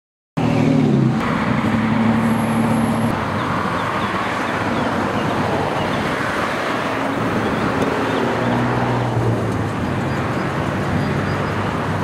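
Road traffic: cars running and passing close by, a steady engine hum under tyre and road noise. It cuts in suddenly after a moment of silence.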